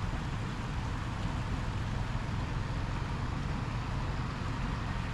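A steady low rumble with a faint hiss over it, unchanging throughout.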